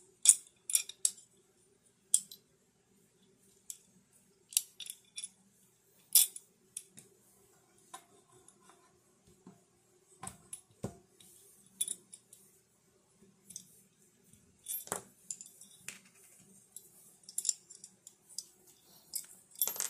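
Small metal mounting hardware being handled: bolts, washers and a steel plate click and clink against each other and the tabletop in scattered sharp taps. A faint steady hum runs underneath.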